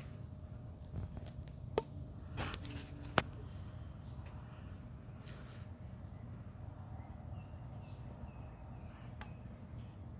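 A short hiss of compressed air a little over two seconds in, released at half pressure into a pneumatic cylinder as it extends, with a click just before and a sharp knock right after. Steady high chirring of crickets underneath.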